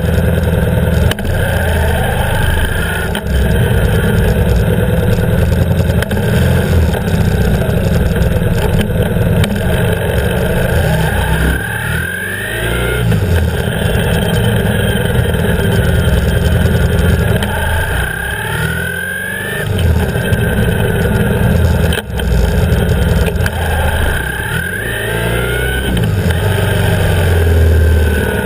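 BMW R 1150 GS's boxer twin engine running as the motorcycle rides along at low speed, heard close up from beside the engine. The engine note rises and falls several times as the bike accelerates and eases off, with brief drops in loudness between the rises.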